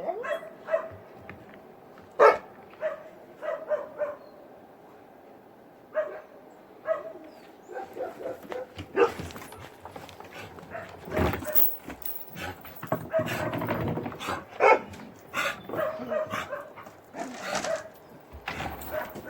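Dogs barking on and off, sparse at first and busier and louder in the second half, with short higher yelps between the barks.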